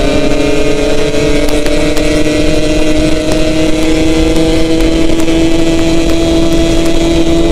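Yamaha RX-King's two-stroke single-cylinder engine running steadily under way, its pitch creeping slowly upward as it pulls.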